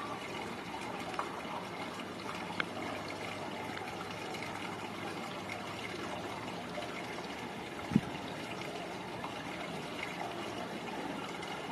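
Steady sound of running, trickling water with one short, low thump about eight seconds in.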